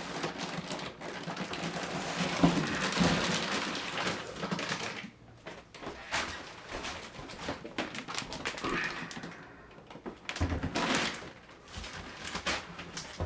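Cardboard box and packing foam rustling and scraping as a PC case is pulled out of its box, followed by scattered clicks and knocks and a few dull thuds near the end as pieces are set down.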